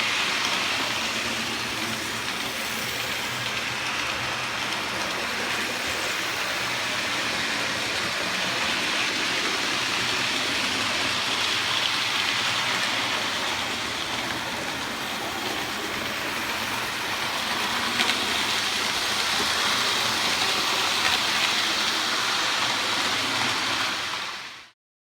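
Hornby model train running on the layout's track: a steady rushing whir of the small electric motor and wheels on rail, cutting off suddenly near the end.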